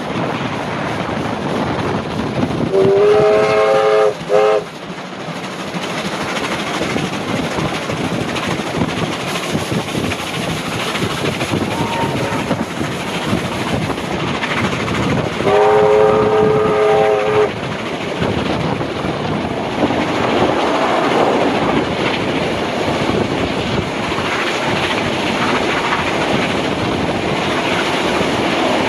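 Two blasts of a steam locomotive whistle, each about two seconds long, one a few seconds in and the other about halfway through; the first has a brief break near its end. Under them runs the steady rumble and clatter of the trains rolling on the rails.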